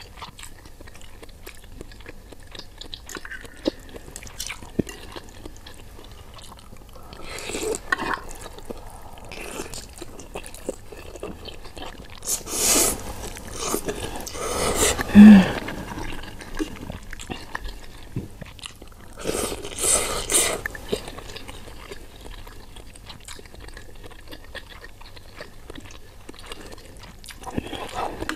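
Slurping of instant ramen noodles in soup, in several loud bouts, the longest about halfway through, with quieter chewing and faint spoon clicks in between. A brief low hum near the middle is the loudest moment.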